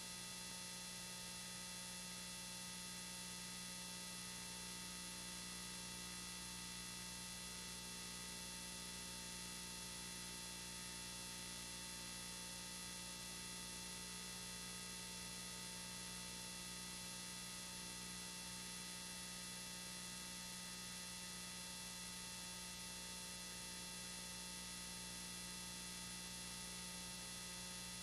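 Steady electrical hum and buzz with hiss, unchanging throughout, in place of the recorded sound: a faulty audio track.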